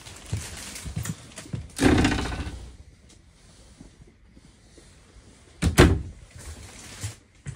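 Bedroom storage and wardrobe doors being handled and shut. There is a thump about two seconds in, and a sharp, loud knock with a double strike near six seconds as the wardrobe door closes.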